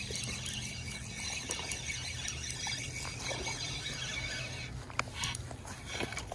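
Fishing reel being cranked, a steady high whirring as line is wound in, that stops about three quarters of the way through, followed by a couple of sharp clicks. A low rumble of wind on the microphone lies underneath.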